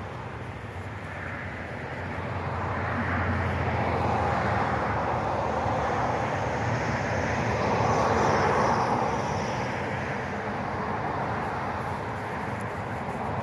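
A distant engine swells and fades as it passes, loudest about two-thirds of the way through and dying back near the end.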